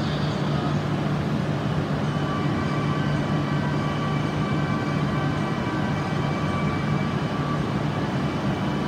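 E6 series Shinkansen train standing at the platform with a steady low hum. Faint, unchanging high tones join the hum about two seconds in.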